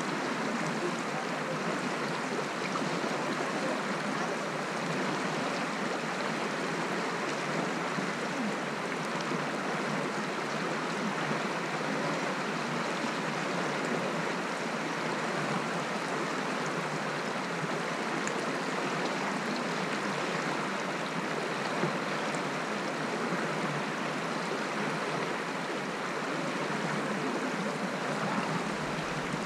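Shallow stream flowing over stones, a steady, even rush of water with no change throughout.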